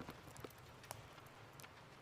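Faint rain-and-fireplace ambience: scattered, irregular crackling pops and ticks, about half a dozen, over a low steady rumble.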